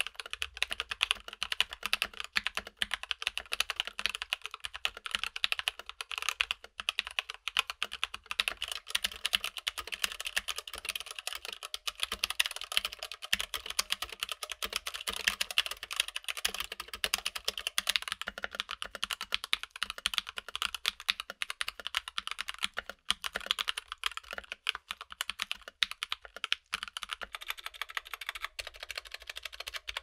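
Steady, fast typing on a Keychron K8 tenkeyless mechanical keyboard with linear switches, a dense run of key clacks. One stretch is on Everglide Aqua King V3 switches with clipped, lubed stabilizers and no silicone dampening. Another is on the stock Gateron Red switches with no mods.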